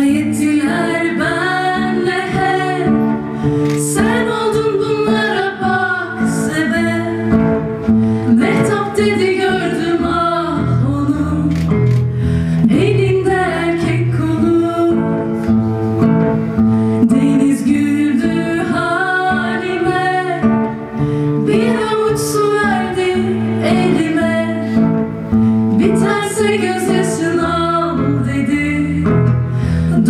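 Two young female voices singing a slow melody, accompanied by acoustic guitar.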